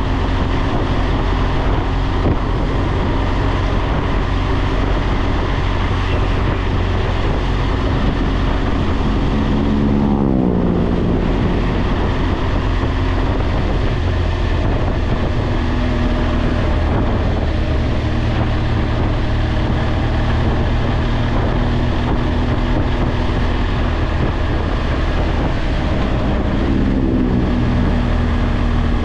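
BMW R1200GS boxer-twin engine running at road speed, with wind on the microphone. The engine note falls in pitch about ten seconds in, and again near the end.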